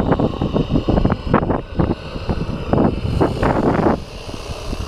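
Hand-made live-steam single-cylinder model speed boat running under way across the water, with irregular gusts of wind buffeting the microphone.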